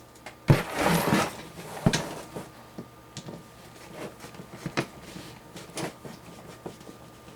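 Clicks, knocks and scraping of plastic and metal parts being handled while case fans are screwed into a PC case. The busiest clatter comes about half a second in, with a sharp knock near two seconds and scattered lighter clicks after.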